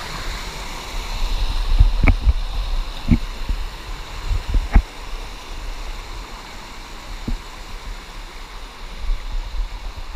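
Water running steadily, as from a creek or small waterfall, with four short knocks spread through.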